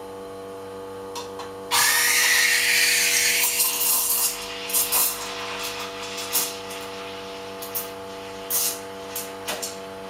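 Carimali Kicco two-group espresso machine: its pump hums steadily as the volumetric shot runs. About two seconds in the steam wand opens with a loud hiss. The hiss then drops to a lower, spluttering hiss with short sharp bursts, typical of steaming milk in a jug.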